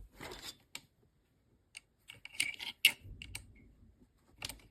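Irregular light clicks and rattles of a small battery angle grinder and its parts being handled.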